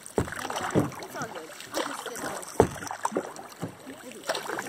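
Kayak being paddled through still, weed-covered water, with splashy paddle strokes and several sharp knocks on the hull, the loudest a little past halfway.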